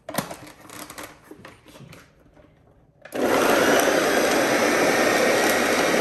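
A few light clicks and knocks of handling. About three seconds in, an electric food chopper switches on and runs steadily, grinding onions, cilantro, green chillies and minced beef into a kofta mixture.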